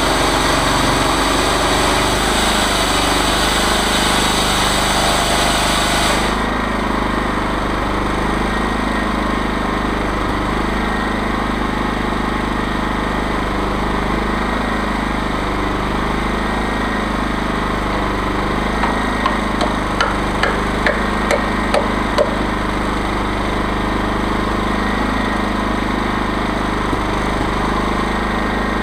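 Chainsaw mill's engine running steadily. About six seconds in, the high hiss over it drops away, and about two-thirds of the way through there is a quick run of about seven sharp taps.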